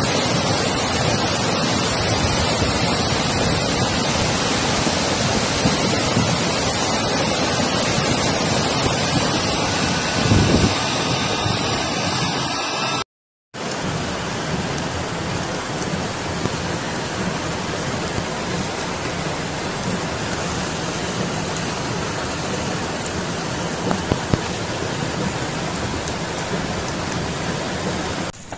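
Flash-flood torrent of muddy water rushing down a wadi channel: a steady, dense rush of water noise. There is a short low thump about ten seconds in. The sound breaks off briefly about thirteen seconds in, then the rush continues.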